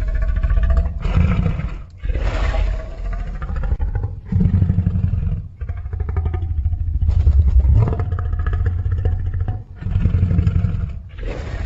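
Pitched-down monster roar sound effects: several deep roars in a row, each about one to two and a half seconds long, with short breaks between them.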